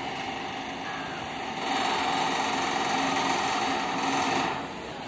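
Diesel engine of a rail-mounted crane running steadily, growing louder about a second and a half in and dropping back shortly before the end, as if revved up and then eased off.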